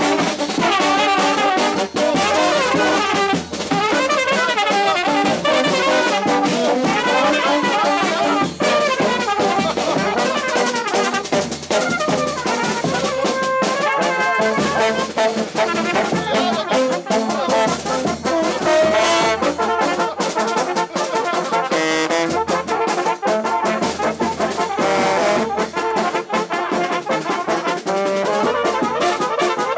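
Serbian wedding brass band of trumpets and larger bell-front horns playing together without pause, the melody lines wavering with vibrato and ornaments.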